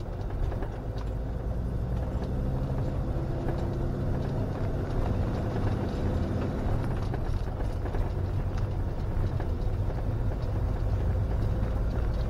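Camper van's engine running and tyres on the road, heard from inside the cab while driving slowly: a steady low hum with a few engine tones over road noise.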